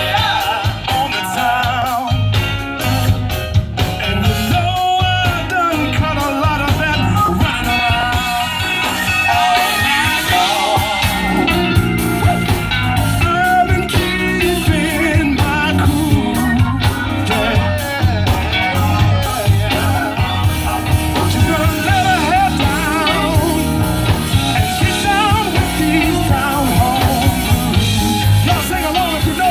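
Live band playing a blues-rock number: electric guitar over bass and drums, with a singer.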